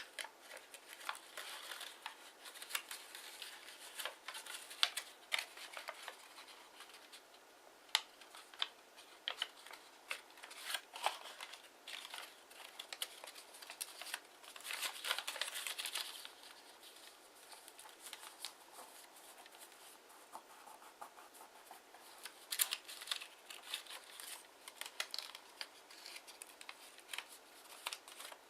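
Kraft origami paper being folded and creased by hand, rustling and crinkling with many small taps and scrapes, a longer stretch of rustling about halfway through.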